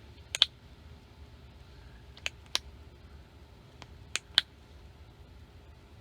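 Small plastic push-button air valve of an inflatable camping pillow clicking: three pairs of sharp clicks about two seconds apart, the valve being pushed open and closed.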